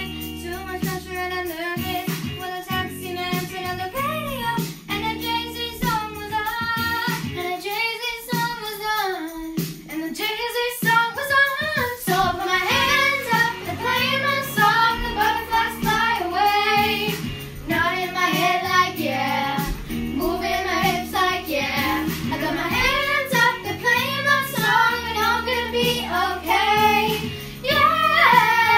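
Young girls singing a pop song together over an instrumental backing track; the backing's bass drops away briefly about a third of the way through, leaving the voices nearly alone.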